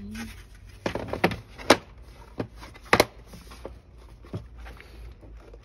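Hard plastic clicks and knocks from the Tetra pond submersible flat box filter as the foam pad is seated and the slotted plastic lid is pressed shut, the two sharpest about a second and a half apart.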